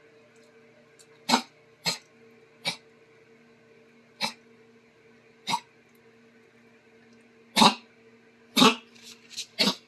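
A dog coughing in short, sharp hacks, about ten of them at uneven intervals, coming louder and closer together near the end.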